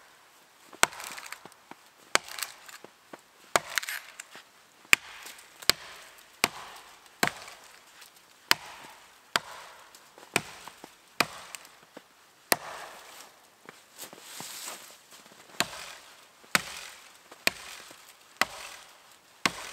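Axe chopping into a broken-off dead tree, a sharp knock of the blade into the wood about once a second.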